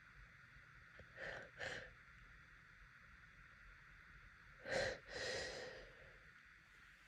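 A woman's breathing during an allergy fit's sneeze buildup, with no sneeze: two quick breaths just over a second in, then a sharp gasping breath about five seconds in, followed by a long sigh-like breath.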